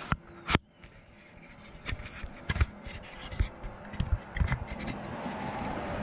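Camera handling noise: two sharp clicks at the start, then scattered knocks and scraping as the camera is moved and set in place. A steady background noise comes up near the end.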